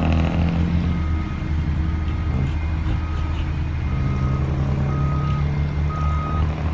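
Diesel engine of a heavy construction vehicle running steadily while its reversing alarm beeps about once a second, six beeps in all, growing louder toward the end.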